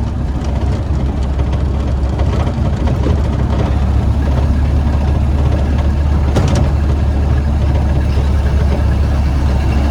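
1931 Ford Model A's four-cylinder flathead engine running steadily under way, heard from the cab with road noise, growing a little louder over the first few seconds. It is running evenly on its reworked distributor, the misfire apparently cured. A single sharp click comes about six and a half seconds in.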